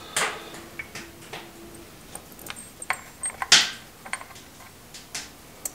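Scattered small metal clicks and knocks from a drive coupling and its bolts being worked into place by hand on the front of a tractor engine. The loudest knock comes about three and a half seconds in.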